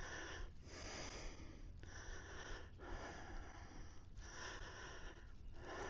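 A person breathing quietly close to the microphone, a run of breaths roughly a second each with short pauses between.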